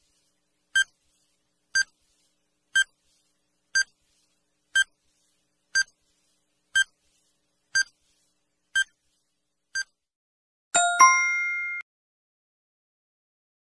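Quiz countdown timer sound effect: ten short electronic beeps, one a second, then a ringing ding of several tones that dies away over about a second as the time runs out.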